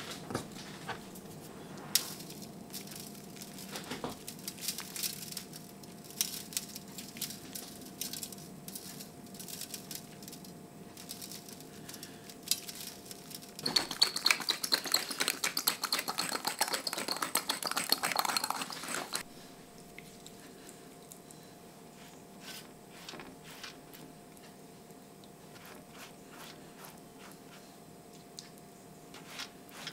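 A hand-twisted seasoning grinder grinding over a baking tray for about five seconds near the middle, a dense run of rapid crackling clicks. Before it come scattered light ticks and taps, over a faint steady hum.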